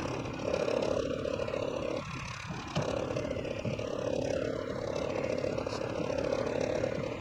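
A steady motor hum that cuts out for a moment about two seconds in, then resumes.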